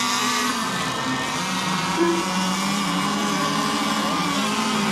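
Several radio-controlled racing boat engines running together as a high buzzing drone, their pitches sliding up and down as the boats circle before the start. A short tone sounds about two seconds in.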